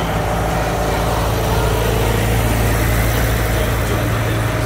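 Tractor engines running steadily as the tractors drive past one after another, a low, even engine hum.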